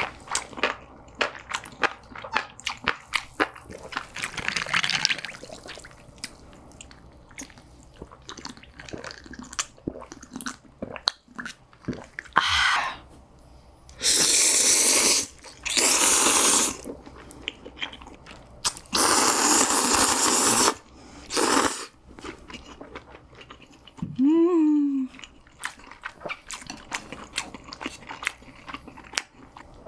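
Close-miked eating: steady chewing with small crunches and mouth clicks. Several long, loud slurps come in the middle, typical of slurping noodles, and a short hum follows a little later.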